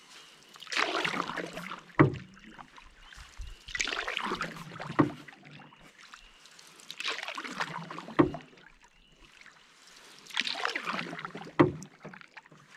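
Canoe paddle strokes with a single-blade wooden paddle: four swishes of water at about three-second intervals, each followed about a second later by a sharp knock.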